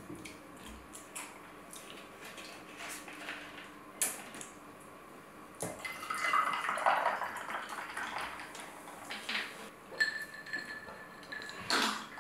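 Close-miked eating sounds: food being chewed, with cutlery clinking on a plate in a few sharp clicks.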